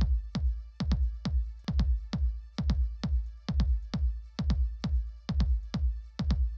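Electronic background music with a steady drum-machine beat of about two hits a second over deep bass.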